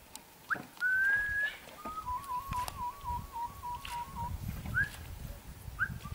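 A person whistling: a long, slightly rising note about a second in, then a warbling note that flicks rapidly between two close pitches for about two seconds, and short upward whistles near the end.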